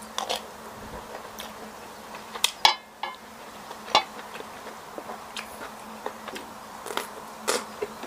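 Eating sounds: chewing and mouth smacks, with wooden chopsticks clicking against a metal serving tray. The loudest is a sharp click with a short ring a little under three seconds in. A faint steady hum lies underneath.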